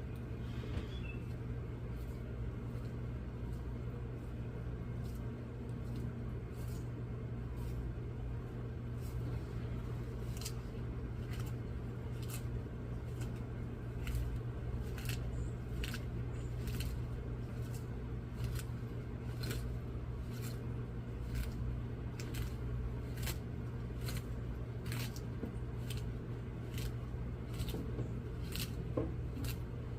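An animal eating unattended: irregular crisp bites or crunches, about one or two a second, over a steady low hum.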